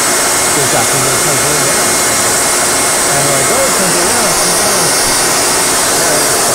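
Shop-Vac wet/dry vacuum running steadily at full power: a loud, even motor-and-fan rush with a thin steady whine. A man's voice is barely audible underneath, drowned out by the vacuum.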